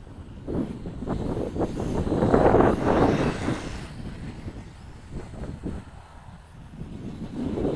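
Wind gusting over the microphone, a rumbling buffet that swells loudest about two to three seconds in, dies down, then builds again near the end.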